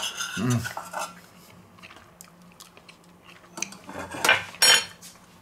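A metal spoon scraping and clinking against a stainless steel pot as tortellini are spooned out onto a plate. The sharpest, ringing clinks come in a short cluster near the end.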